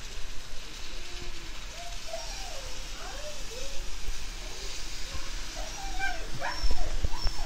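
Alaskan Malamute whining and whimpering in short rising-and-falling cries, a dog frightened by thunder, over the steady hiss of rain; the cries grow louder near the end.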